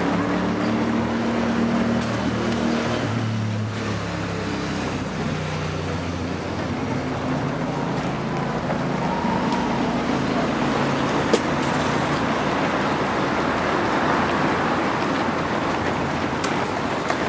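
Footsteps of many runners on an asphalt road as a pack of half-marathon runners passes, with a low steady hum during the first five seconds or so.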